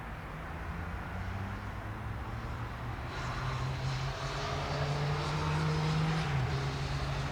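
Dassault Falcon 2000EX's turbofan engines running at low power, before takeoff. A steady low hum grows louder from about three seconds in, with a high whine.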